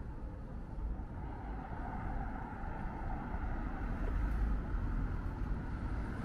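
Steady street noise of traffic running in the distance, with a low, uneven rumble underneath.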